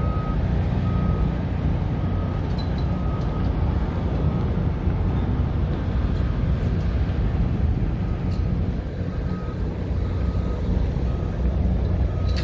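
A construction vehicle's reversing alarm beeping at one steady pitch, a little over once a second, over a steady low rumble of truck engines. The beeping fades out for a few seconds midway and comes back near the end.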